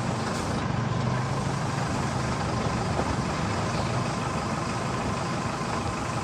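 Truck engine running steadily as the truck drives along a rough lane, heard from the back of the truck, with a constant low hum and road noise.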